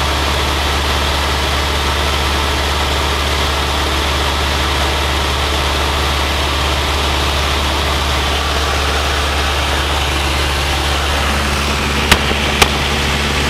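A Luscombe light airplane's piston engine and propeller drone steadily in cruising flight, heard inside the cockpit as a loud, even, low hum with a hiss over it. Two sharp clicks come close together near the end.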